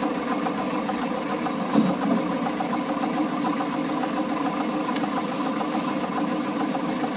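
Oil-mill machinery running steadily: a constant mechanical hum with a quick, even ticking rattle.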